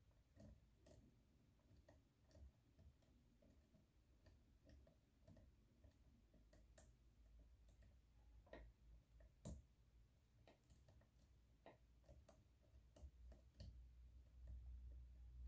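Faint, irregular ticks and clicks of a lock pick working the pins inside a Miwa DS lock cylinder under tension, with a few sharper clicks in the second half.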